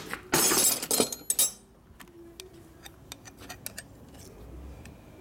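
Metal hand tools, wrenches and sockets, clattering and clinking as they are rummaged through on a workbench. The loudest clatter comes in the first second and a half, followed by scattered light clicks.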